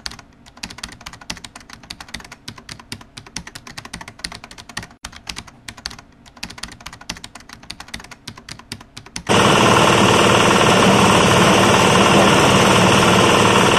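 Rapid, irregular clicking like a typing sound effect. About nine seconds in it cuts suddenly to an engine-driven coconut husk grinder running loud and steady as it grinds husk into coir powder.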